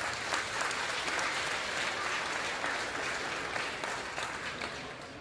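A crowd applauding steadily, the clapping swelling at the start and fading away near the end.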